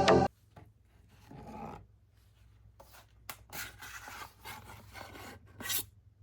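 A product box being handled for unboxing: soft rubbing and scraping, then a run of short scrapes and clicks in the second half.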